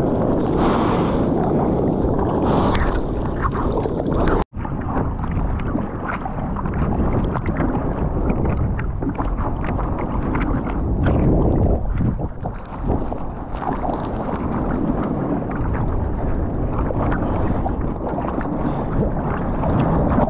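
Sea water sloshing and splashing around a surfer paddling on a surfboard, close to the microphone of a water-level camera, with some wind buffeting; the sound drops out completely for a split second about four and a half seconds in.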